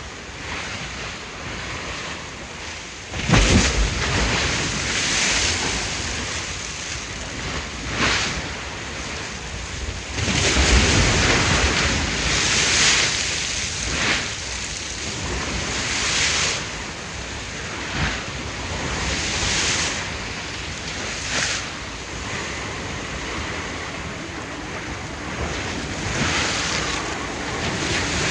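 Ocean waves breaking and washing in one after another, a loud crash about three seconds in and further surges every few seconds, with a steady wash between them.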